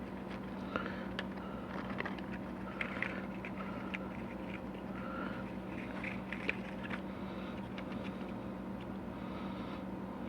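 Light clicks, taps and scrapes of transmission pump parts being handled and fitted, over a steady low hum.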